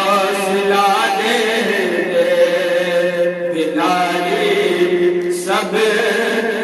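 A man singing an Urdu naat into a handheld karaoke microphone. He holds long notes, with the pitch sliding and wavering between them, in continuous phrases with only short breaths in between.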